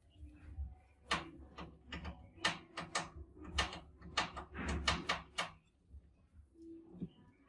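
Sharp, irregular clicks and rattles of mice clambering and jumping on the wire mesh of a glass-tank mouse trap. There are about fifteen in quick succession, and they stop a little past halfway.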